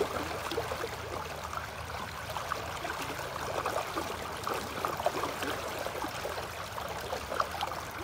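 Fast river current running high, swirling and gurgling along the bank with small irregular splashes.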